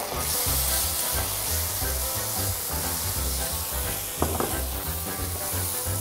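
Ginger-garlic paste frying in hot mustard oil with browned onions and spices in a pot: a steady sizzle that gets louder a fraction of a second in.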